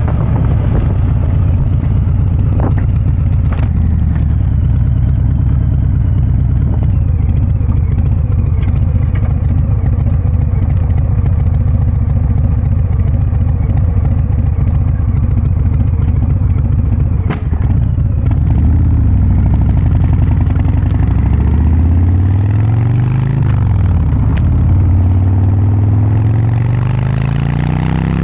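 Harley-Davidson Breakout 114's 1868 cc V-twin running through a Kesstech valved exhaust, a deep steady note at first, then rising and falling in pitch several times as it revs up and eases off in the last third. A brief sharp click comes about two-thirds of the way in.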